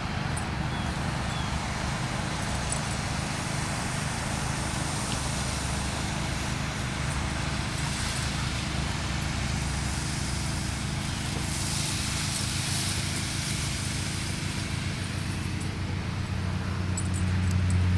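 Steady low mechanical hum and rumble under an even background hiss, growing louder near the end.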